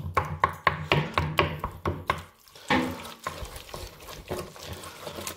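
Wooden spoon stirring thick macaroni and cheese sauce in a stainless steel pot: wet squelching with quick irregular clicks of the spoon against the pot, busiest in the first three seconds.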